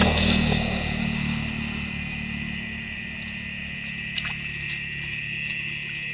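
Night insect chorus: a steady high-pitched drone. A low engine hum, loudest at the start, fades away over the first two seconds, and a few soft clicks sound near the end.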